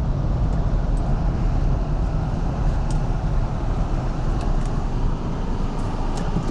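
Steady road and engine rumble heard from inside a moving car's cabin, with a few faint light ticks.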